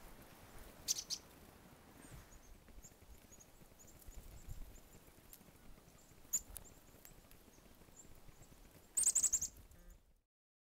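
Black-capped chickadees calling: faint, high, thin notes scattered throughout, with a louder quick run of high notes near the end.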